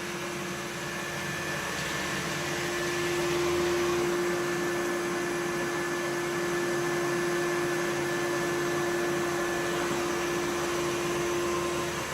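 Samsung VR20M7070WD robot vacuum running: a steady suction whir with a constant hum in it. It swells slightly a few seconds in, then holds level.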